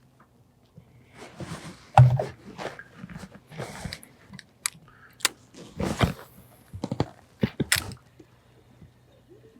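Fishing tackle being handled: a string of knocks and clicks with short rustling swishes, the loudest a thunk about two seconds in.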